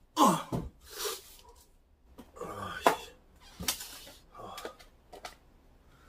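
A man's short breathy vocal sounds and mutters, with a few sharp clicks and knocks from a phone being handled in its tripod grip.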